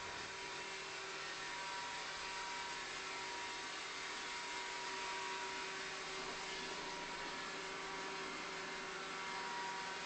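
Steady electrical hum and hiss with two faint constant whining tones, one low and one higher, unchanging throughout.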